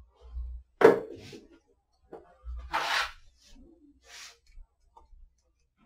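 Small metal mounting hardware (an eye bolt, a nut and a rod) handled and set down on a conveyor belt: a few separate knocks and clinks, the sharpest about a second in and a longer scraping one about three seconds in.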